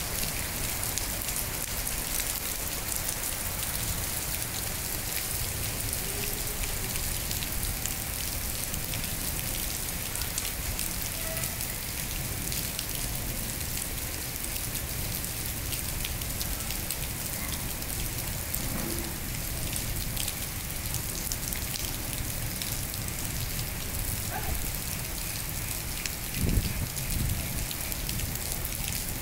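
Steady moderate rain falling, a continuous hiss with scattered drop ticks, and one brief low thump near the end.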